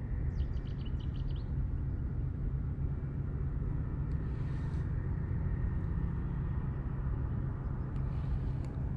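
Steady low outdoor rumble, with a bird's quick run of about eight high chirps in the first second and a half.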